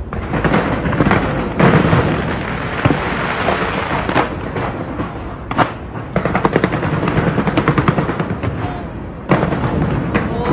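Fireworks display: aerial shells booming over a constant crackle, with a few big bangs and a fast run of crackling bursts about two-thirds of the way through.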